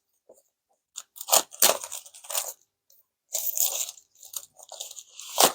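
Product box and its packaging being opened and handled: scattered crinkling and rustling, with a sharp click near the end.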